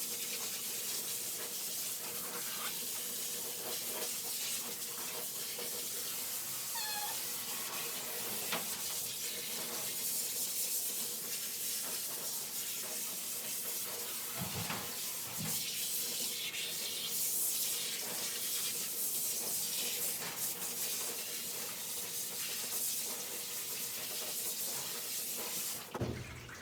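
Warm water spraying steadily while rinsing shampoo out of a poodle puppy's coat, cutting off just before the end. A brief high whine from the puppy comes about seven seconds in.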